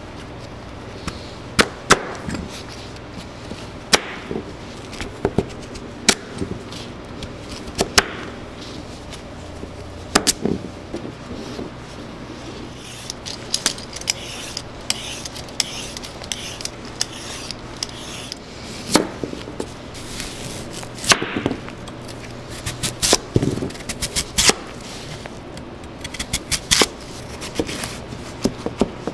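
Chef's knife cutting through squash and Korean radish on a plastic cutting board, the blade knocking sharply on the board at irregular intervals. Around the middle, a vegetable peeler scrapes the skin off the radish.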